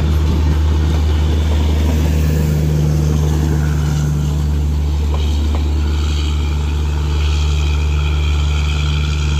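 The tail of a Bangladesh Railways passenger train rolling past and drawing away, its coaches' running gear rumbling over a steady low drone from the louvred generator power car.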